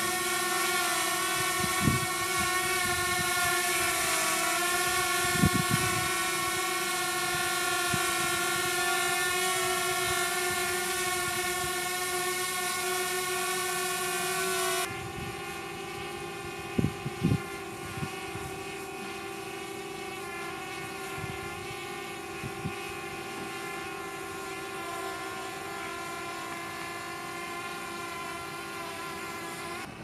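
DJI Mavic Air quadcopter hovering, its propellers making a steady high-pitched whine of several tones over a hiss. About halfway through the whine drops sharply and stays quieter, the drone now hovering higher and farther off (20 m instead of 5 m). A few faint low thumps come and go.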